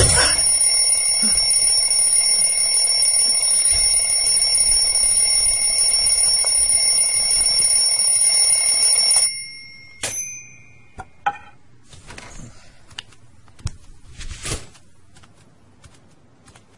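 Alarm clock bell ringing loudly and without a break for about nine seconds, then cutting off suddenly. A short ring and a couple of sharp clicks follow, then a few scattered knocks.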